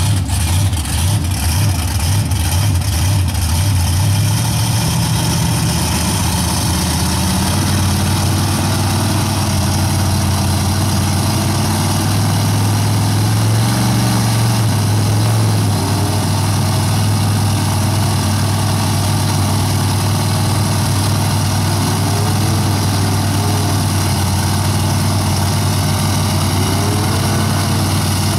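Engines of two lifted mud trucks running steadily under load in a tug of war, a low engine note that swells and rises in pitch a couple of times as the throttle is pushed.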